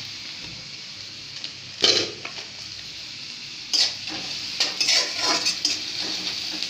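Sliced onions and green chillies sizzling in hot oil in a metal karahi, with a metal spatula scraping against the pan: one loud scrape about two seconds in, then repeated stirring strokes through the second half.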